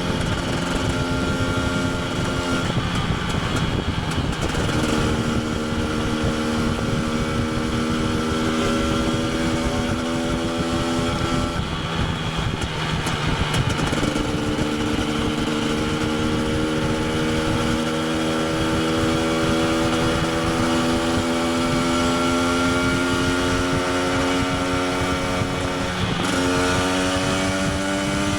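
KTM 250 EXC TPI two-stroke single-cylinder engine running under way. Its note climbs slowly, then drops back and climbs again several times, with a rough rush of wind and road noise underneath.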